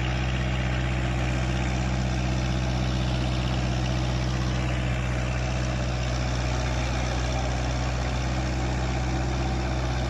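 Kubota MU4501's four-cylinder diesel engine running steadily under load, driving a tractor-mounted rotary tiller through the soil.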